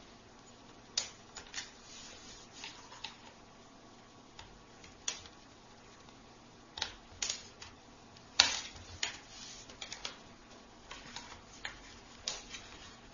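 Irregular sharp plastic clicks and snaps as a netbook keyboard is worked loose from its retaining clips with a thin knife blade, the loudest snap past the middle.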